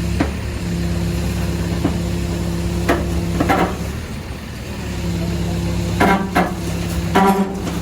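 An engine runs steadily, with a string of sharp knocks and clatters over it: a couple early on, a pair about three seconds in, and a cluster near the end.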